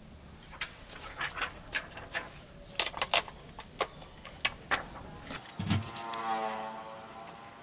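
Clear adhesive tape being handled and pressed down on a screen-printing frame, with scattered crackles and clicks, the loudest about halfway. Near the end a strip is pulled off the roll in a pitched squeal lasting about a second and a half.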